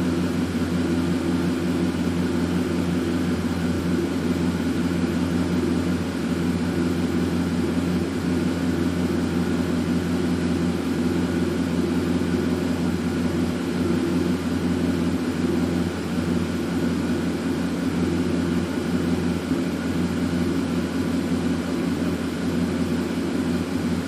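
Ford 5.4-litre three-valve V8 of a 2007 F-150 idling steadily, an engine that has been logging misfires on cylinder 5.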